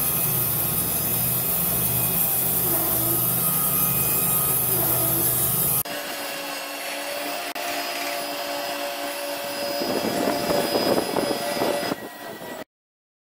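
Wood-Mizer LT70 band sawmill running, its band blade cutting a slab from a wet pine log. The sound changes abruptly about six seconds in: it drops in level and loses its low engine drone, grows rougher again a few seconds later, then stops suddenly near the end.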